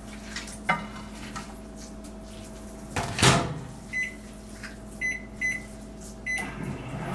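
Microwave oven being loaded and set: a click, then the door shutting with a knock about three seconds in, then four short keypad beeps as the 3-minute timer is entered. The oven's hum picks up at the very end.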